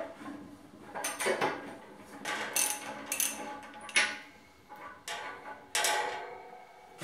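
A threaded steel fitting being worked loose and unscrewed from the top of an air compressor's pressure tank: a run of irregular metal-on-metal scrapes and clicks as the threads turn.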